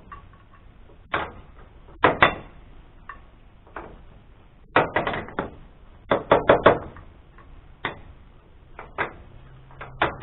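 Sharp knocks and clicks in small groups of two to four, tools and parts being handled while the log clamp of a Wood-Mizer sawmill is put back together. A low steady hum comes in near the end.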